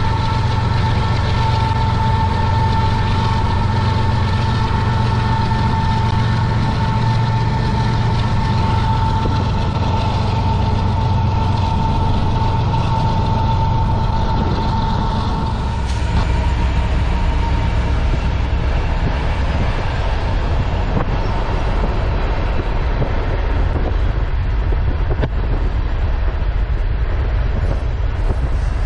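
Union Pacific freight train running at speed, heard from a vehicle pacing alongside: a steady low rumble with a steady high whine. About halfway through the whine drops out and the rumble gets broader and hissier.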